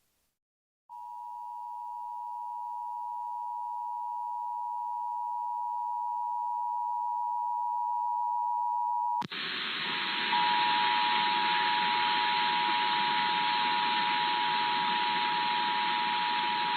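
Emergency Alert System two-tone attention signal (853 and 960 Hz) sounding steadily, beginning about a second in after a brief silence. About nine seconds in, a click is followed by a loud hiss under the continuing tone.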